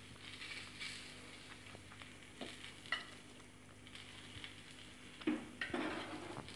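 Aloo paratha frying on a hot tawa with ghee, a faint sizzle, while a spoon spreads ghee over the top. Scattered light clicks and scrapes of the spoon, a few more of them near the end.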